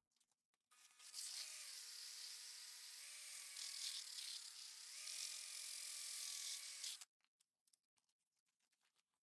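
Cordless drill spinning a wooden tool handle while sandpaper is held against it: a steady motor whine with a hiss of sanding. It starts about a second in, dips in pitch twice and recovers, and cuts off suddenly about seven seconds in.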